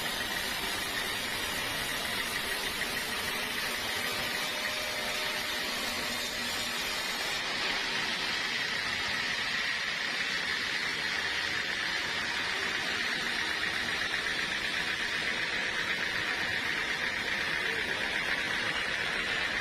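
Sawmill saw running steadily, a constant hiss strongest in the upper-middle range that gets a little stronger about a third of the way in.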